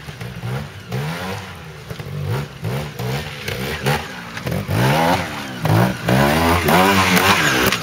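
Trials motorcycle climbing a rocky section, its engine blipped again and again: short rising revs, one after another, growing louder as the bike comes closer.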